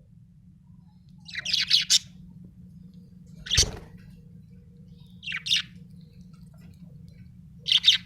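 Budgerigar chirping in four short bursts of quick, high chirps with pauses of a second or two between them. A dull thump comes with the second burst, over a steady low hum.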